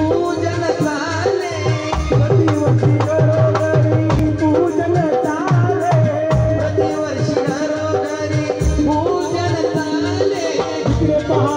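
Live Indian ensemble music: an electronic keyboard playing a melody with sliding notes over the steady beat of a two-headed barrel drum.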